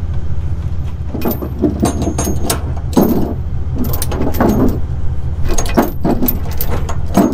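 Steel safety chains on a gooseneck hitch clinking and rattling as the links are handled and adjusted, with a series of short metallic clinks over a steady low engine hum.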